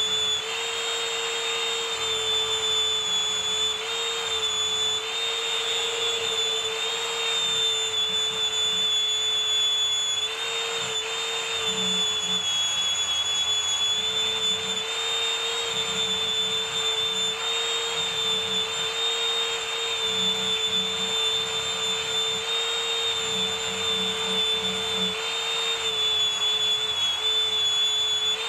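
Electric motor running steadily with a high whine, its pitch dipping slightly now and then as if under light load.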